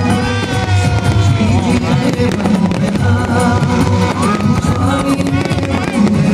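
Loud music with a steady low beat and a sustained, gliding melody line, with fireworks banging and crackling underneath.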